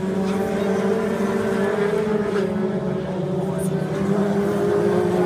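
Race car engines running on the circuit, a steady, even drone.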